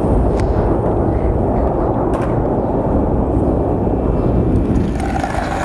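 A steady, loud low rumble of noise with no clear pitch.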